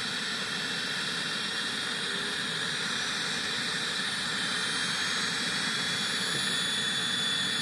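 Small jet turbine engine of a model Eurocopter Lama helicopter running on the ground: a steady rushing hiss with thin high-pitched whine tones, growing slightly louder as it warms up through its start sequence before lift-off.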